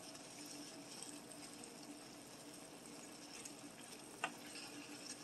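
Wooden spoon quietly stirring a stir fry of vegetables, ramen and pork in a skillet, with one light knock of the spoon against the pan about four seconds in, over a faint steady hum.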